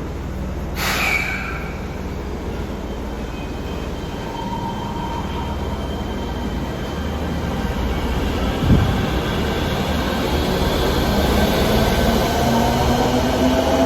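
Fukuoka City Subway 1000N series train running with its jet-engine-like noise, the odd sound the series is known for. A single knock comes about nine seconds in, and near the end several tones rise in pitch together as the traction motors pull away.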